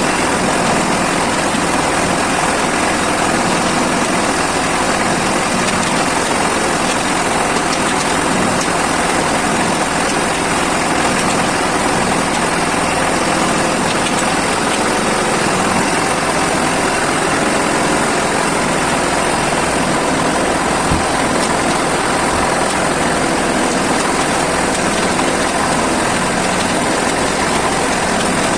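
Diesel engine of an Agrale compact tractor carrying a homemade backhoe, running steadily.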